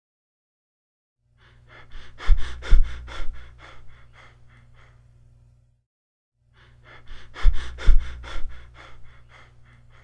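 Cheyne-Stokes breathing: a run of quick breaths that swells louder and then fades away, a pause with no breathing, then a second identical run. This waxing-and-waning pattern with pauses of apnea is the sign of cardiac damage such as heart failure.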